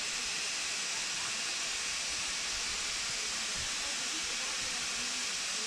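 Steam-hauled train running, heard as a steady, even hiss with a faint low rumble underneath.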